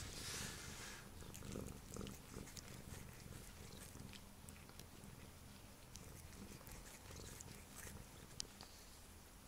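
Siamese cat grooming, licking its paw with faint, wet little licking clicks, and one sharp click near the end.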